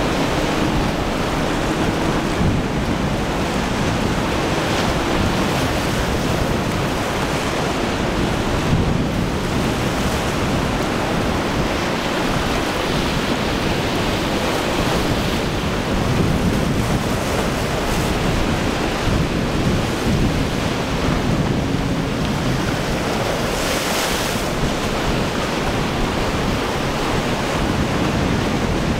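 Wind blowing on the microphone over choppy surf and breaking waves, a steady rushing noise. The drone of a small boat's outboard motor comes through faintly near the start and again about two-thirds of the way in.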